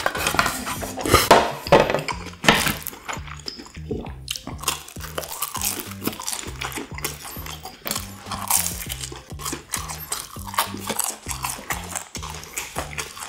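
Background music with a steady, repeating bass beat over close-up eating sounds. A wooden spoon scrapes and clicks against a plate, loudest in the first few seconds, followed by chewing.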